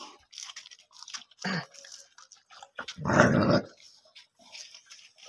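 Street dogs lapping milk from a steel plate in short wet bursts. About three seconds in, one dog gives a short, loud growl at the crowded plate.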